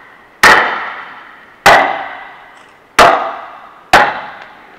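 A wooden club striking the back of a froe set into the top of a log, driving it in to split the log: four heavy blows about a second and a quarter apart, each with a metallic ring that fades over about a second.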